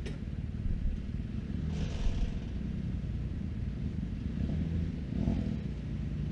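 Side-by-side UTV engine idling with a steady low rumble and a couple of brief swells.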